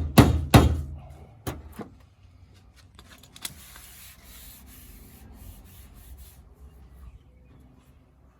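Sharp knocks on a car body panel, two loud ones right at the start and a few lighter ones after, then a few seconds of rubbing and scraping as a dent is pulled and worked out of the Lamborghini Huracan's bodywork.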